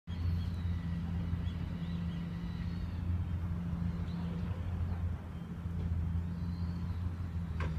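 Steady low hum of a vehicle engine running, with faint high chirps over it and a brief click near the end.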